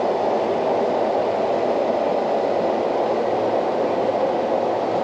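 Steady, even drone of a John Deere combine harvester heard from inside its cab while it harvests wheat.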